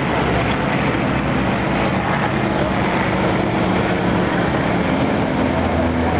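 Engines of aerobatic airplanes flying overhead, a steady drone whose pitch shifts as the planes pass.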